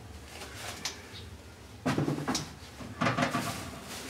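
Knocks and clatter from handling kitchen things while cooking, with two louder bursts about two and three seconds in over a low steady hum.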